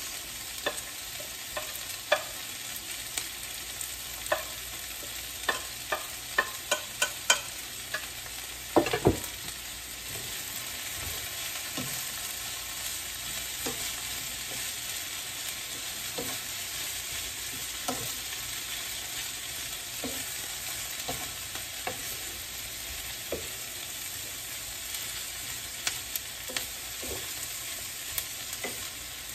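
Shredded carrots and onions sizzling in oil in a frying pan while a wooden spatula taps and scrapes them in and stirs. A run of sharp clicks and knocks in the first nine seconds, the loudest about nine seconds in, then a steady sizzle with occasional knocks of the spatula.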